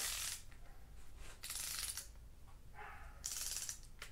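Ratchet of a torque wrench clicking in three quick bursts as the handle is swung back and forth, tightening a cylinder head bolt on a 12-valve VR6 engine, with a sharp single click near the end.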